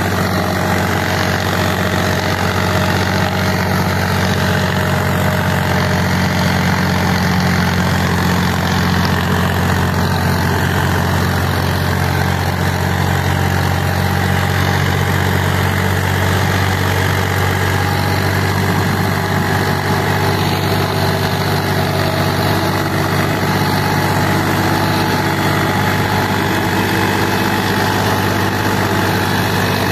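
Indo Farm tractor's diesel engine running steadily while pulling a disc harrow through the soil.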